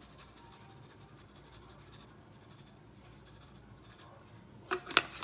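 Faint room tone, then near the end a quick series of sharp rattling taps from a garlic pepper seasoning shaker being shaken over the food.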